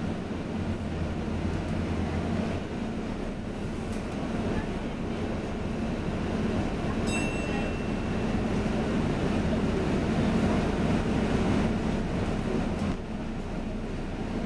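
Inside a bus in motion: a steady engine and road rumble with a low hum, and a brief high tone about seven seconds in. Near the end the lowest part of the hum drops away.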